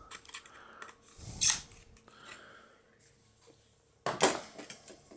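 Plastic parts of a Hasbro Mission Fleet Gauntlet Starfighter toy being handled and fitted together: scattered sharp plastic clicks and light rubbing, with two louder snaps about a second and a half and four seconds in.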